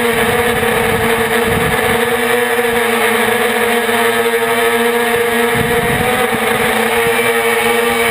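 Multicopter's electric motors and propellers whining steadily at a constant pitch while it hovers, heard from a camera mounted on the craft.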